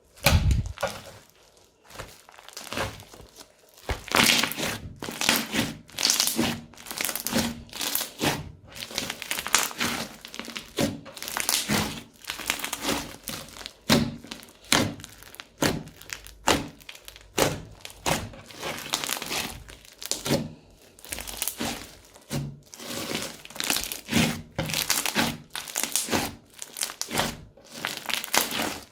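Crunchy slime being squeezed and pressed by hand, giving a continuous run of irregular crackling and crunching, a few crackles a second. A loud thump opens the sequence.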